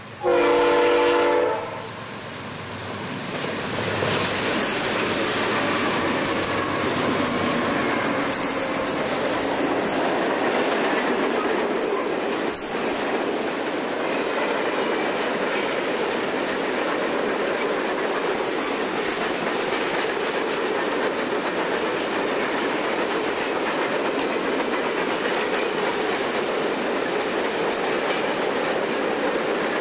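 Diesel freight locomotive horn sounding one short blast, the loudest moment, just after the start. The lead locomotives then come by and a long string of empty coal hopper cars rolls past steadily.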